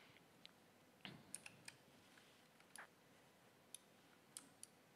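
Near silence with faint, irregular computer mouse clicks, about nine of them spread over a few seconds.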